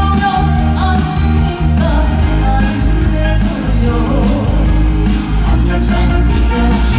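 A Korean popular song performed live on stage: a singer's voice carrying the melody over loud instrumental accompaniment with a heavy, steady bass.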